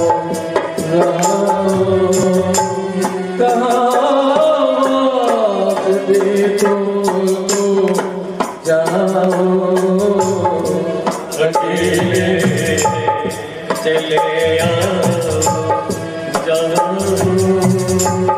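Hindi film song music: melodic instruments over a steady rhythm of light percussion ticks, with a long gliding melodic line a few seconds in.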